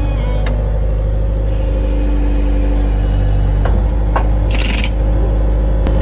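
Bobcat skid steer's diesel engine running steadily just after starting, a loud low drone, with a couple of light knocks about four seconds in.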